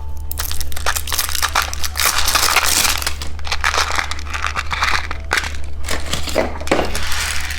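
Plastic candy packaging crinkling and crackling as it is handled and unwrapped, in dense, irregular bursts.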